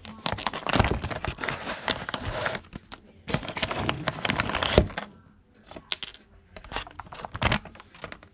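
Clear plastic bag crinkling in two long stretches as hands open it and pull out a small all-metal model air compressor, then scattered sharp clicks and knocks as the model is handled and set down on a cutting mat.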